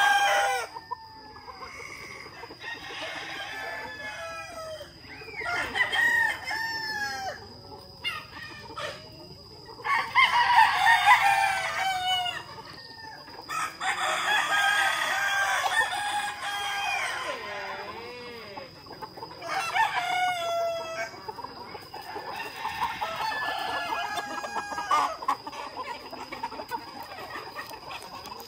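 A large flock of roosters and hens: roosters crowing again and again, several crows in turn and some overlapping, with clucking in between.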